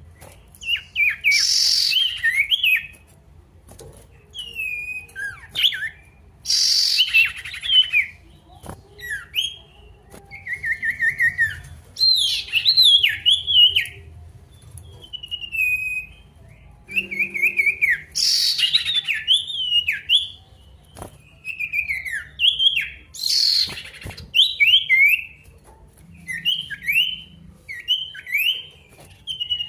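A male sirtu singing hard in repeated phrases of quick sliding, trilled whistles with short pauses between them. The phrases are broken four times by a loud, harsh, rasping note. This is the 'gacor' calling song of a bird challenging a rival.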